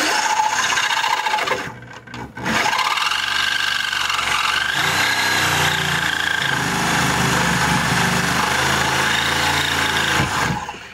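Reciprocating saw (Sawzall) cutting the steel outer sleeve of the old differential bushing in a Nissan 350Z's rear subframe. It cuts for under two seconds, stops briefly, then cuts steadily for about eight seconds and stops near the end.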